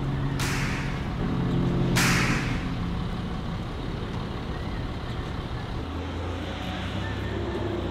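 Road traffic: a vehicle engine running, with two short sharp hisses about half a second and two seconds in. A steady low hum comes in near the end.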